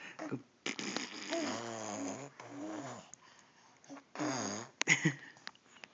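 A person making silly raspy noises with the voice: a long wavering snore-like rasp, then shorter ones and a sharp loud burst about five seconds in.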